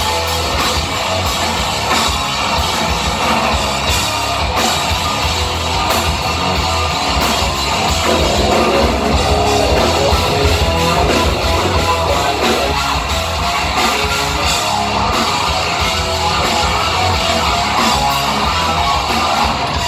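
Live hard rock band playing an instrumental passage without vocals: electric guitar over bass and a drum kit, loud and dense.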